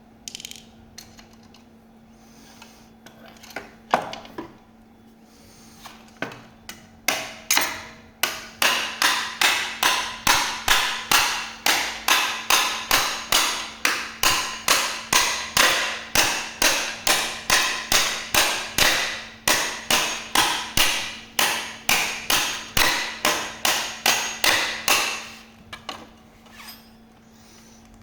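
A hammer striking repeatedly and evenly, about two to three blows a second, while a rear fender is taken apart. A few single knocks come first, the steady hammering starts about seven seconds in, and it stops briefly near the end before starting again. A faint steady hum runs underneath.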